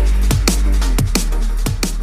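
Electronic dance music with a heavy bass line and a fast, steady drum beat.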